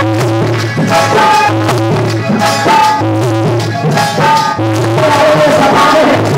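Dholak played by hand in a fast, driving rhythm, over a melodic accompaniment with held notes and a steady low drone.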